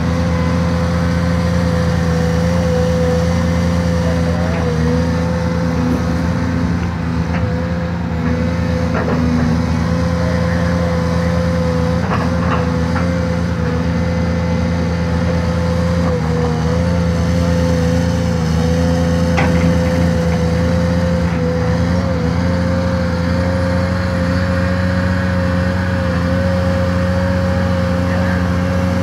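Caterpillar 340D2 L hydraulic excavator's diesel engine running steadily as it digs coal, with a steady whine over the engine drone. A few faint knocks come through.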